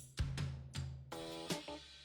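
Background music with a drum beat, bass line and pitched instrument notes.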